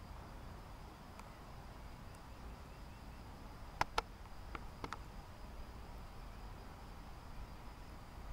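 A faint, steady, high-pitched trill of an insect, likely a cricket or grasshopper, over a low rumble. A few sharp clicks sound in the middle, the two loudest close together about four seconds in.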